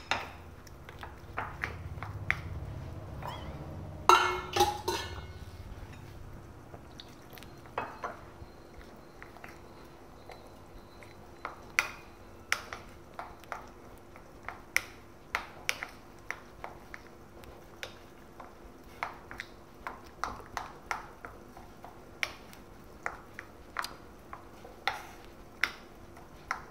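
Spoon and bowl clinking while batter is mixed: a loud clatter about four seconds in, then sharp, uneven clinks roughly once a second. A low hum runs under the first few seconds.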